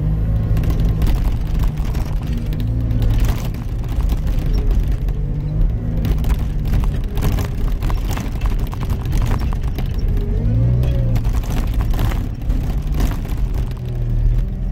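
Caterpillar 289 compact track loader running under load, its diesel engine loud and steady, with knocks and rattles as it works. The engine note rises and falls briefly about ten seconds in.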